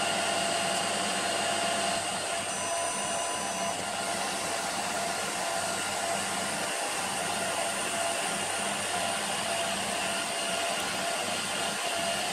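Emco PC50 CNC lathe running a turning pass, taking a light cut on brass rod: a steady motor and spindle whir with a few faint constant whines, easing slightly about two seconds in.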